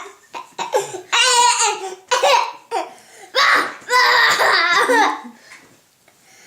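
A young boy laughing hard in a string of high-pitched bursts, cracking himself up over his own fake burps; the laughter trails off near the end.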